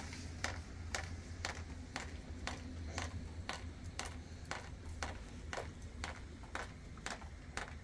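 Water from a leaking roof dripping, a sharp drop landing about twice a second at a fairly even pace, over a low steady hum.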